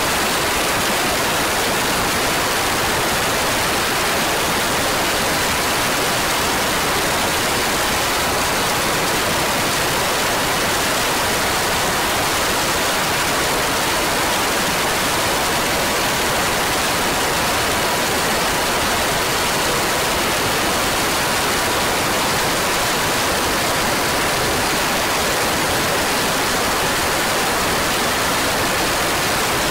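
Steady loud rushing of air over an onboard camera on a 100cc laydown racing kart at speed, with a faint steady engine whine buried beneath it.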